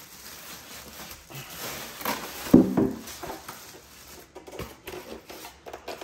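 A styrofoam packing end-cap being pulled off a plastic-wrapped machine: foam scraping and creaking against the wrapped body while the plastic wrap rustles, with a louder, squeak-like rub about two and a half seconds in.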